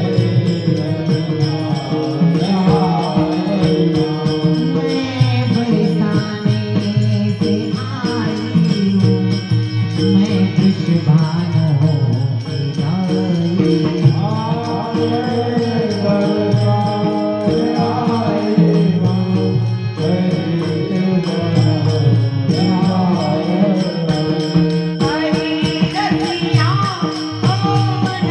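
Hindi devotional bhajan: a voice sings in wavering phrases over steady held notes, with jingling hand percussion keeping a rhythm.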